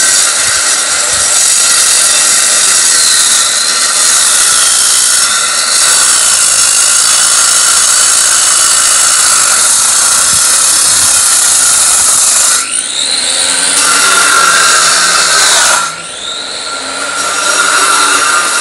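Handheld angle grinder with a cutting disc running loud and steady as it cuts a groove into a masonry floor. Twice the cut lets up briefly, near two-thirds through and again near the end, and the motor's whine rises back up to speed.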